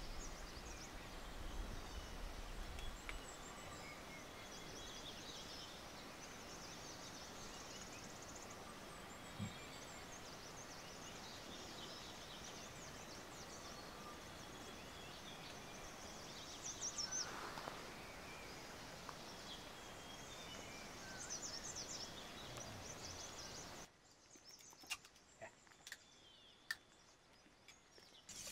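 Steady outdoor background with scattered short bird calls. Near the end it cuts to a quieter background with a few sharp clicks.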